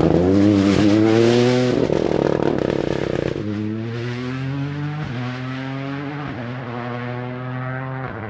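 Rally car engine revving hard as the car passes, then pulling away through upshifts: the pitch climbs and briefly drops about every second and a half while the sound fades and dulls with distance.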